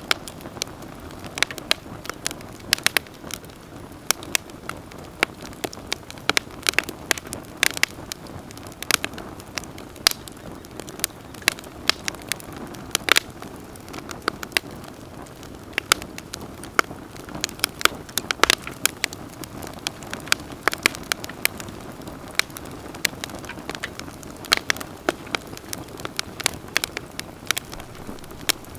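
Wood campfire burning with a steady low hiss and frequent sharp, irregular crackles and pops.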